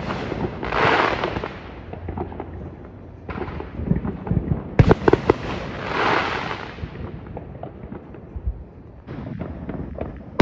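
Aerial fireworks bursting overhead: a series of sharp bangs, some followed by about a second of hissing crackle as the sparks spread, with a quick cluster of pops near the middle.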